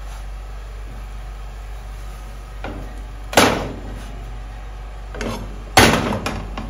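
A silicone spatula scraping and shoving a slice of French toast across a nonstick frying pan, with a sharp scrape about three and a half seconds in, then a loud clank near the end as the pan is lifted off the gas stove's metal grate. A steady low hum runs underneath.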